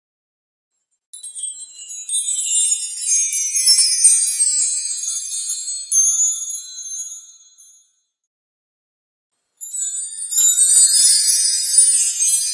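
Chimes tinkling in two spells of many high, ringing metallic notes, with a silent gap of over a second about eight seconds in.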